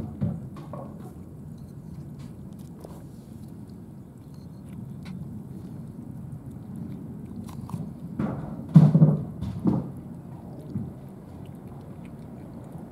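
Cats eating, with faint chewing and crunching clicks over a steady low rumble. A few louder dull thuds come about eight to ten seconds in.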